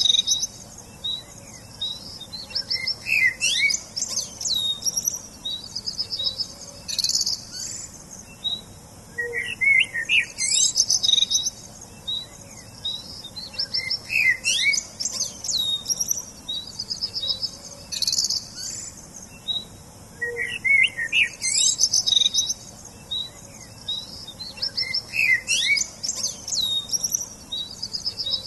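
Small songbirds singing: quick high trills, rising whistled glides and short chirps in phrases that recur every three to four seconds, over a steady high hiss.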